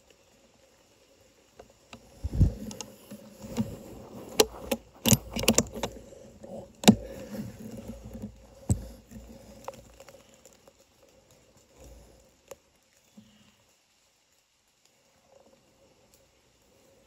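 Handling noise from the scoped rifle with the phone mounted on it: rustling with a dense run of sharp clicks and knocks for about eight seconds as the rifle is moved, then only a few scattered ticks. A faint steady hum runs underneath.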